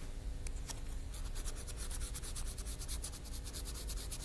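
Sandpaper rubbed quickly back and forth over a small piece of magnesium metal, a fast run of scratchy strokes at about eight a second that pause briefly near the start. The rubbing scours the oxide layer off the metal's surface.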